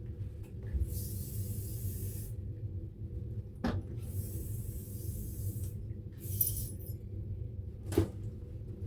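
Lysol aerosol disinfectant spray hissing in bursts: two long sprays of about a second and a half and a short one, over a steady low hum, with two sharp knocks.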